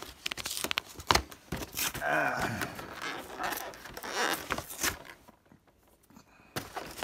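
Plastic shrink wrap on a card box being torn and crinkled, a quick run of sharp crackles and rips that stops about five seconds in.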